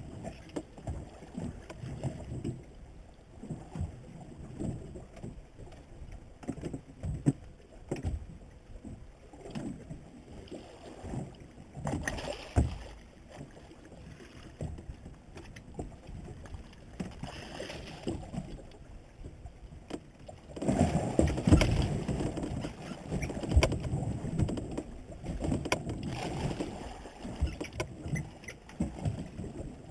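Water slapping and lapping against the hull of a small drifting boat, with irregular knocks on the hull, growing louder and choppier for several seconds about two-thirds of the way through.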